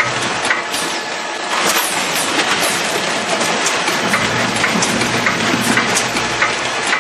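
Apple bagging machine running: a NEWTEC weigher and Automated Packaging Systems SPrint Revolution bagger filling plastic pouch bags, a continuous clatter of apples dropping into bags and plastic rustling, with frequent sharp clicks and knocks over a low machine hum.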